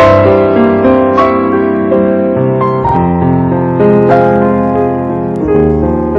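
Background piano music, slow held chords changing about once a second.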